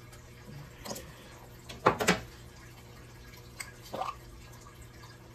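Candle jars and their lids being handled: a few short light clicks and knocks, the loudest a close pair about two seconds in, over a faint steady low hum.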